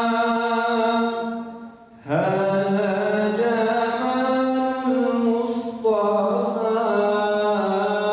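A single male voice chanting a mevlud melody unaccompanied, in long, slowly ornamented held notes. The first phrase fades out a little after a second in, and a new phrase begins about a second later, with a quick breath near the middle.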